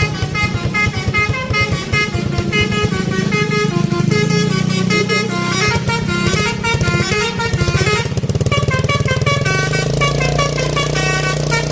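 Bus 'telolet' multi-tone horn playing a quick, repeating melody of short notes over the low, rapid pulsing of the bus engine running.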